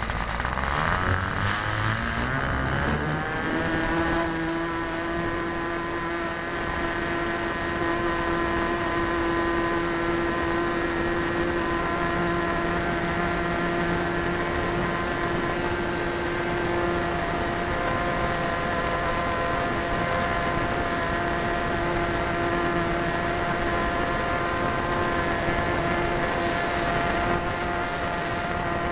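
Super Tigre .90 two-stroke glow engine on an Ugly Stick RC plane running at high throttle. Its pitch rises over the first few seconds, then holds steady, with wind rushing over the onboard microphone.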